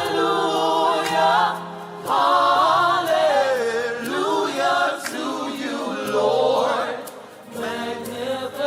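Gospel vocal group singing in harmony, with held notes and vibrato and little or no instrumental accompaniment.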